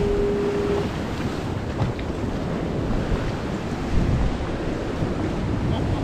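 Ocean surf washing and breaking around a kayak, with wind buffeting the microphone. A steady tone stops just under a second in.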